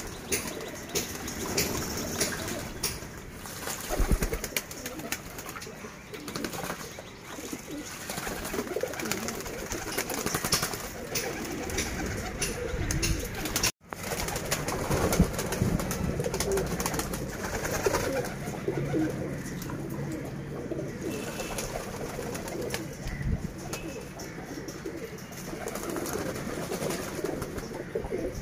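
Domestic pigeons cooing while others bathe in a shallow tray of water, splashing and flapping their wings in quick irregular bursts.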